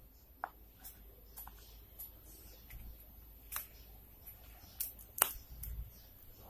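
Plastic squeeze tube of baby cream crinkling and clicking in the hand as it is squeezed out, a string of short, irregular clicks with a louder pair about three and a half and five seconds in.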